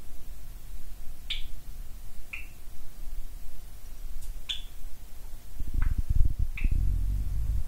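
Short, sharp single chirps from small pet cage birds, about half a dozen spaced roughly a second apart. A low rumble joins in over the last couple of seconds.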